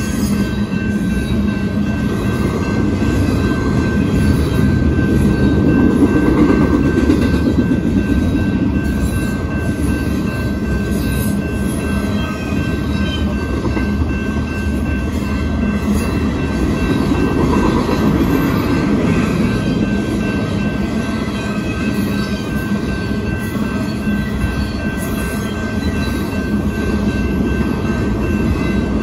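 BNSF double-stack intermodal freight cars rolling past at a grade crossing: a steady, even rumble of steel wheels on the rails, with a thin steady high tone above it.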